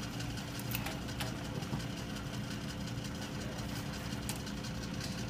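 Addressograph Graphotype embossing machine running idle between keystrokes: a steady motor hum from its continuously spinning arm, with a few faint clicks.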